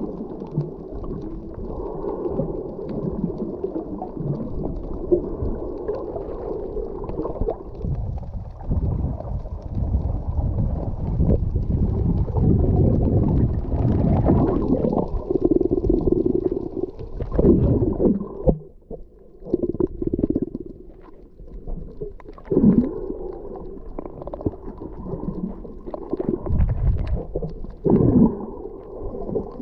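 Muffled underwater rumble and gurgling of water moving against a GoPro HERO8 Black's housing, swelling and easing in surges, with a few seconds of lower level a little past the middle.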